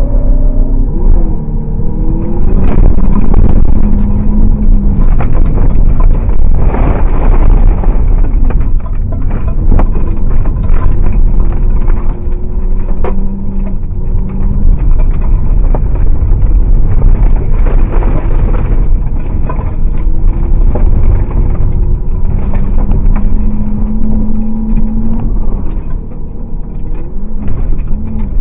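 Race car engine heard from inside the cabin on a gravel track, its pitch repeatedly rising under throttle and dropping back through gear changes, loud throughout. Frequent short knocks and rattles run through it, from gravel and bumps striking the car.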